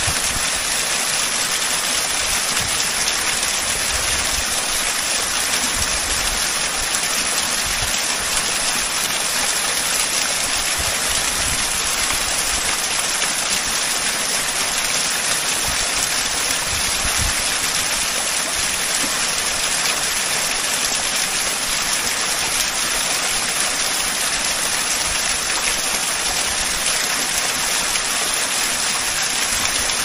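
A three-tiered waterfall about 72 m high, its water falling steadily into the plunge pool: an even, unbroken rushing hiss, bright and high.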